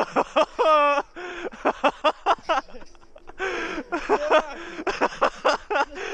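Men's voices: a loud yell in the first second, then rapid short bursts of shouting and laughter.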